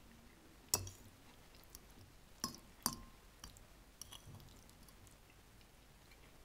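Sharp clinks of a utensil against a dish: three louder ones in the first three seconds, the last ringing briefly, then a few softer taps.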